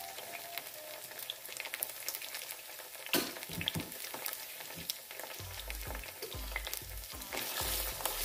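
Onions and tomato paste sizzling and crackling in hot oil in a pot, with a sharp knock about three seconds in. Near the end a wooden spatula starts stirring and scraping the paste into the oil.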